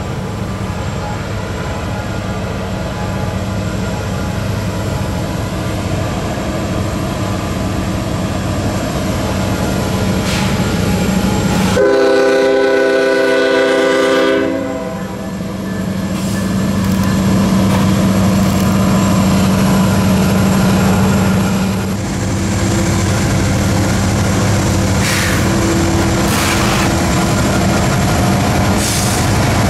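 Union Pacific diesel locomotive passing close by with its engine droning steadily. About twelve seconds in it sounds one long blast of its multi-chime air horn for the grade crossing, lasting about three seconds. A few sharp clicks of wheels over the rail come near the end.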